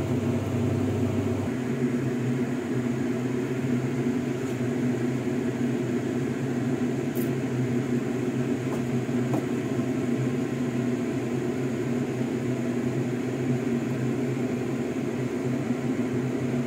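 Steady, even hum of a fan motor, with a low drone and a few faint clicks.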